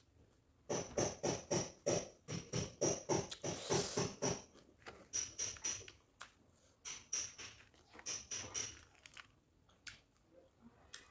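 Close-miked chewing of a mouthful of noodles, about three chews a second at first, then slower and more scattered toward the end.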